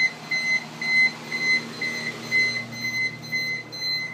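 CO2 safety alarm beeping in quick, evenly spaced high-pitched pulses, about two to three a second, because the CO2 level has gone above its 5000 ppm setpoint. Underneath it the wall-mounted exhaust fan that the alarm switched on is running with a steady low hum.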